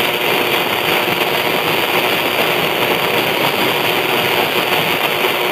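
Steady hiss and static of weak, long-distance AM radio reception on 1260 kHz, with no clear programme audio above the noise.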